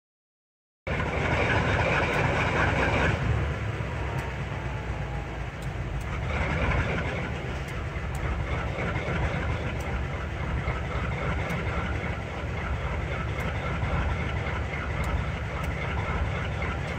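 Sound-equipped HO-scale model diesel locomotives playing a steady idling diesel engine sound through their small onboard speakers. It starts about a second in, louder for the first couple of seconds, then settles to a steady idle.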